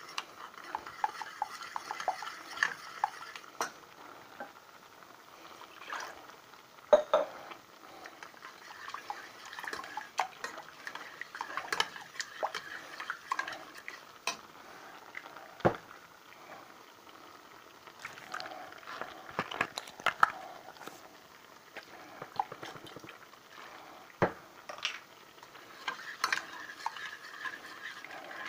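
A utensil stirring thick sauce in a stainless steel saucepan, clinking and scraping against the pot's sides in quick, uneven taps, with a few louder knocks against the metal.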